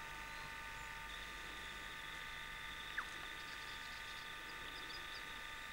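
Steady recording noise: a hiss with a faint whine of several held tones, broken by a single short click about three seconds in.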